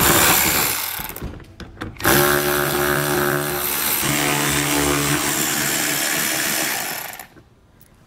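Cordless power driver spinning out the 8 mm bolts that hold the wheel-well liner. It runs in a short burst, then steadily for about five seconds before stopping.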